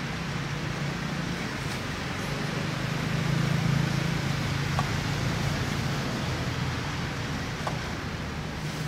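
Steady low hum under a broad hiss, swelling slightly in the middle, with two faint short chirps.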